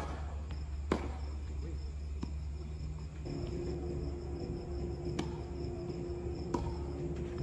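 Tennis balls struck by racquets during a rally: five sharp pops one to three seconds apart, the serve at the start the loudest. Under them run a steady low hum and the high, steady chirring of insects.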